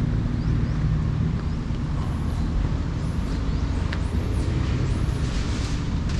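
A motor vehicle's engine running steadily as a low rumble, with a few faint high chirps over it.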